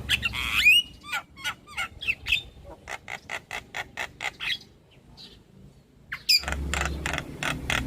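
Javan myna calls: a rapid string of sharp chattering notes with a harsh squawk about half a second in. The calls die away for about a second and a half near the end, then resume densely over a low hum.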